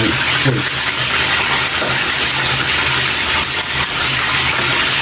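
Fish frying in hot oil in a pan, a steady sizzle, with a low steady hum underneath.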